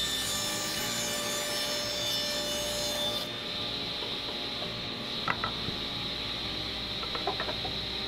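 Ridgid table saw running steadily as a 3/4-inch birch plywood panel is fed through it, trimming a thin strip off. The hiss of the cut fades about three seconds in while the blade keeps spinning, with a few light knocks of wood being handled near the end.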